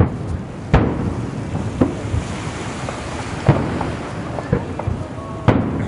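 Aerial firework shells bursting, about six booms a second or so apart, each trailing a low rumble, over a steady background hiss.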